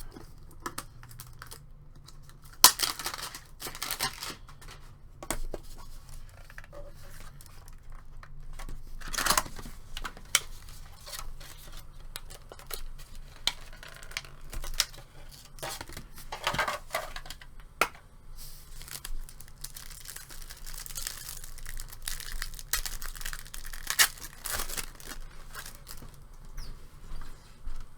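A trading-card pack wrapper being torn open and crinkled by hand, in scattered noisy bursts, with the cards inside handled between the tears.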